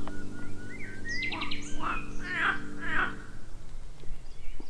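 Wild birds singing and calling: short harsh calls repeat about every half second, and a rising whistled phrase with a few quick ticks comes about a second in. Under them, a low held chord of background music stops about three seconds in.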